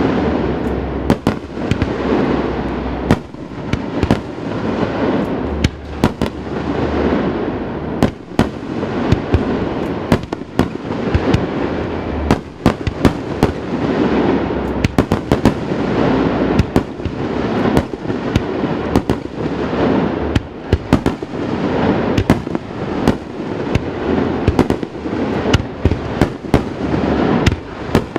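Fireworks display: a dense, continuous barrage of shells launching and bursting, with many sharp cracks and bangs every second over a steady rumble. The booms echo off the surrounding mountains.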